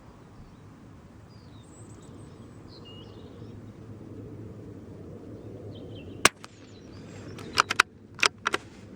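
A single .22 LR rifle shot from a Brno (CZ) bolt-action rifle firing Geco Rifle ammunition, a sharp crack about six seconds in. It is followed by four sharp metallic clicks in two quick pairs, the bolt being cycled. Birds chirp faintly earlier on.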